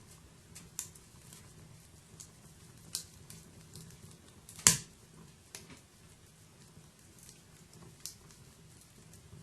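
Wood fire burning: scattered crackles and snaps over a faint low rumble, with one sharp, loud pop about halfway through.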